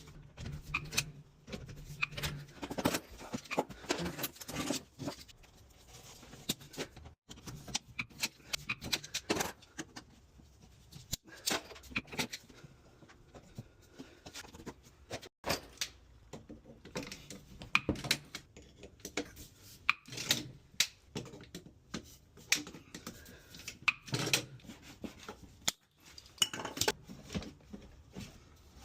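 Tools and metal pipe fittings clinking and knocking irregularly while plumbing connections are made up on a tankless water heater.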